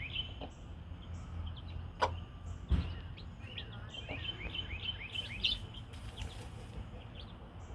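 Baby chicks peeping in quick runs of short, high, falling notes, with a couple of sharp clicks a few seconds in, over a steady low background hum.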